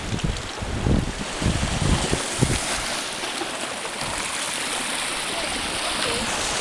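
Sea water washing and lapping against a rocky shoreline in a steady hiss. There are a few low thumps on the microphone in the first couple of seconds.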